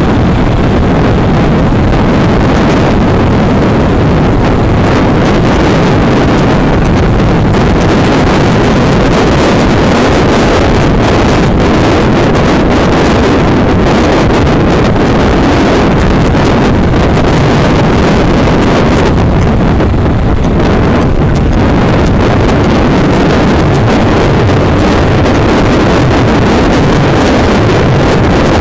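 Loud, steady wind roar over the camera microphone of a moving motorcycle, with the bike's engine running underneath.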